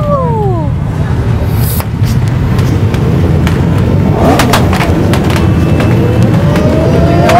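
Civil-defence siren sounding the W-Hour signal that marks the start of the Warsaw Uprising: a wail that falls steeply in pitch over the first second, then rises again in the last second and a half. Beneath it runs a steady low rumble, with a few sharp cracks about four seconds in.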